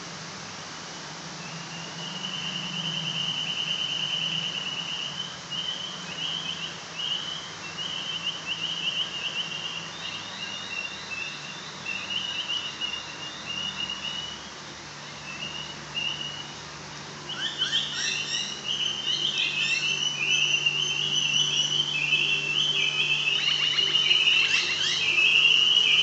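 Axial SCX10 Honcho radio-controlled crawler driving through a shallow stream. Its electric motor gives a high whine that starts and stops with the throttle and grows louder as the truck comes near. Splashing and clattering come in over the last several seconds.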